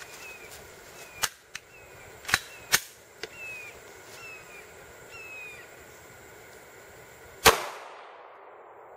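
A single 9mm pistol shot about seven and a half seconds in, sharp and loud with a brief echo. A few light clicks come before it.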